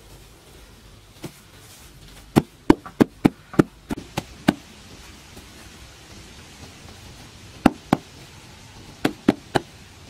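Sharp knocks: a quick run of about eight over two seconds, then a pair, then three more near the end.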